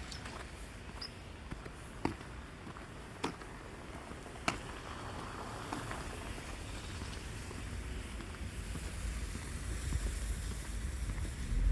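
A few slow footsteps on snowy pavement, each a sharp short click, then a low rumble that grows louder toward the end.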